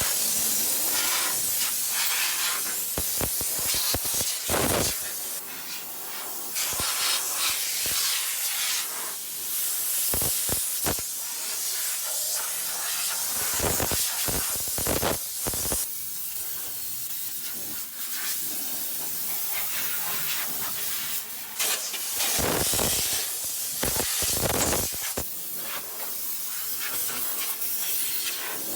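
Compressed-air blow gun hissing as it blows sanding dust off a car body, in uneven bursts that swell and drop as the nozzle moves.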